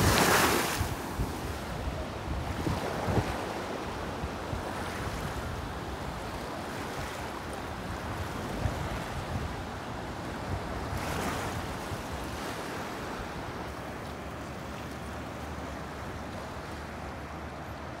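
Ocean surf: waves breaking and washing up the sand in a steady rush, loudest at the very start as a wave runs up the shore, with another surge about eleven seconds in. Wind rumbles on the microphone underneath.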